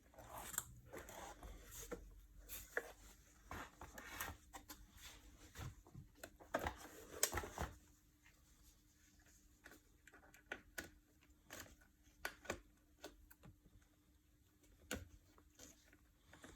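Hands handling plastic vacuum-cleaner parts during a repair: irregular clicks, taps and rustling. These are busier in the first half and sparser after, over a faint steady hum.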